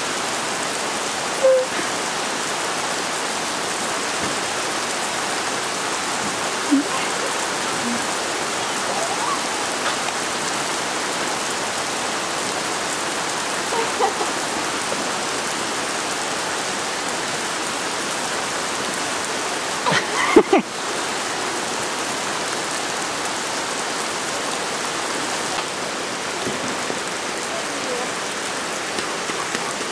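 Steady rain falling on a soaked lawn and puddles. It is broken by a few brief sounds, the loudest about twenty seconds in.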